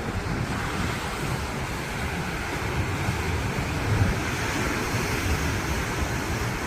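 Ocean surf washing steadily, with wind buffeting the microphone in a low, gusty rumble.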